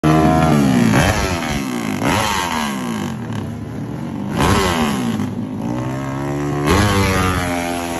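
Racing underbone motorcycle engine being revved hard while held in place, its pitch sweeping sharply up and falling back about five times.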